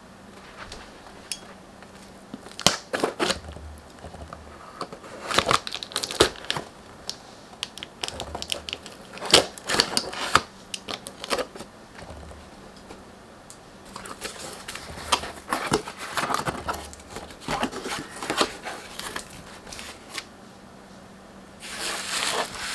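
Product packaging being handled and opened by hand: irregular spells of crinkling, rustling and tearing, with quiet gaps between.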